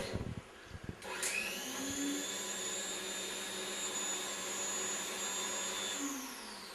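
Filter coffee vending machine dispensing a regular coffee: a few clicks, then its motor starts about a second in with a rising whine, runs steadily, and winds down near the end.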